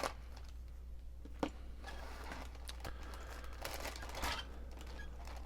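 Plastic wrapping crinkling as the parts of a plastic model car kit are unpacked and handled, with one sharp click about a second and a half in.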